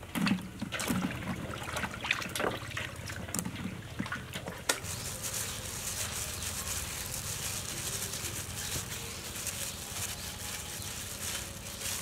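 Knocks and rustling of handling the fruit. From about five seconds in, steady wet squelching and crackling as ripe sapodilla pulp is squeezed and mashed in hands wearing thin plastic gloves.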